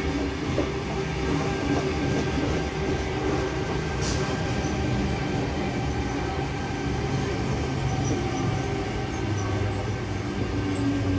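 Sydney Trains Tangara double-deck electric train rolling along the platform: a steady rumble of wheels and motors with a faint steady whine. There is a single sharp click about four seconds in, and a few faint high squeaks from the wheels later on.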